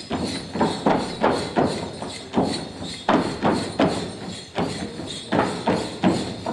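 Folk dancers' feet stamping on a stage in a steady rhythm, about three heavy thuds a second.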